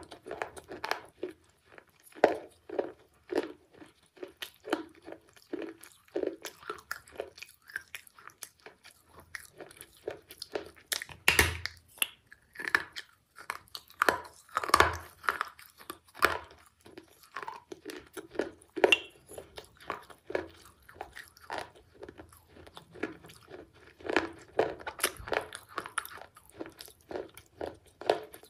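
Close-up biting and chewing of pieces broken off a baked terracotta clay cup: a steady run of sharp, irregular crunches, several a second, with a couple of louder crunches midway.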